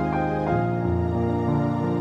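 Background music with slow, held notes that change every half second or so.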